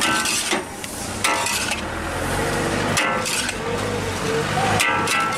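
Metal spatulas scraping and clanking against a large steel wok as noodles are stir-fried and tossed, with several ringing metal strikes over a steady sizzle.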